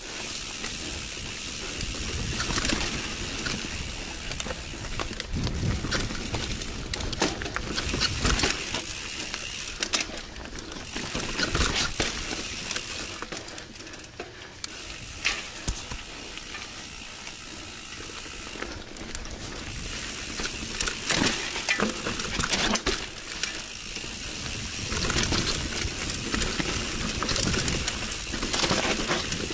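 Mountain bike ridden down a rough dirt singletrack: tyres running over dirt and roots, the bike rattling and clicking over bumps, with a constant rushing noise that swells and dips.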